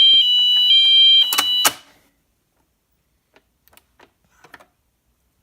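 Wheelock MT fire alarm horn sounding a high-low two-tone pattern, switching pitch about twice a second, like an English police car. It cuts off after two sharp clicks about a second and a half in, leaving only a few faint clicks.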